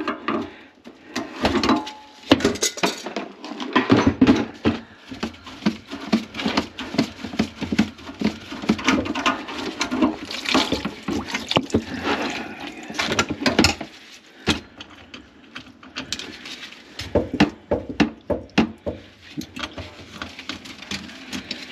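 Brass kitchen-sink P-trap being taken apart with pliers: irregular metal knocks, clinks and scrapes against the brass pipe and nuts, with water from the grease-clogged drain running into a bucket.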